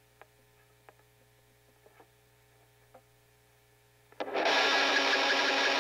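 A faint low hum with a few soft clicks, then about four seconds in a black metal band comes in abruptly and loud, a dense wall of distorted guitars and drums.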